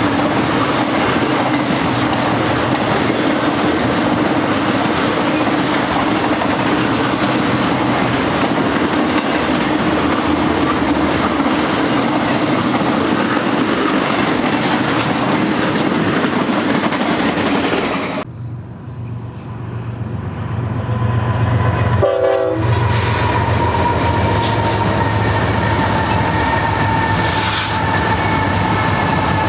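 Long intermodal freight train rolling past: steady rumble of steel wheels on rail with the clickety-clack of car wheels over rail joints. After a sudden cut and a brief quieter stretch, lead BNSF GE diesel locomotives pass with engines running and a steady tone that dips slightly in pitch as they go by.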